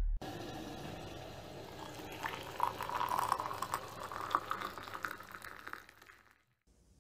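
Tea being poured from a teapot into a cup: a splashing pour of liquid that grows louder about two seconds in and fades out near the end.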